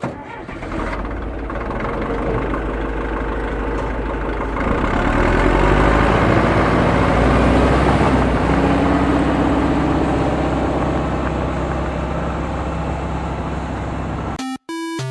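A heavy vehicle engine running with a deep, steady rumble, growing louder about five seconds in and then holding steady, cut off abruptly near the end.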